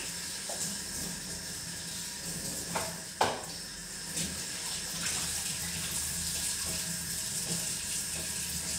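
Kitchen tap running as hands are washed under it, a steady rush of water. A couple of sharp knocks come about three seconds in, the second one the loudest.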